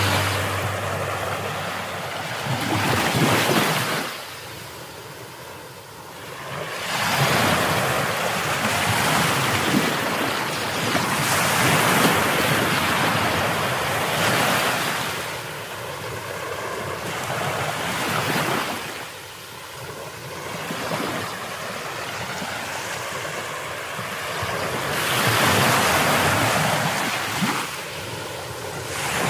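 Ocean waves washing on a shore: a broad rushing noise that swells and ebbs every few seconds.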